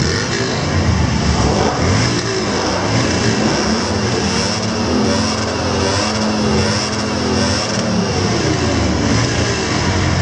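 Motorcycle engines running, their pitch rising and falling as they are revved.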